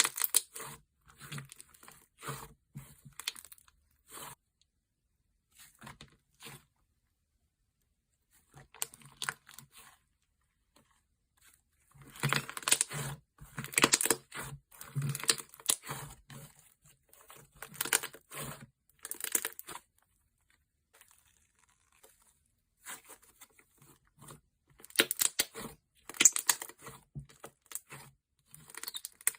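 Thick slime being handled, stretched and pulled apart, giving bursts of crackling, tearing sounds separated by quiet pauses.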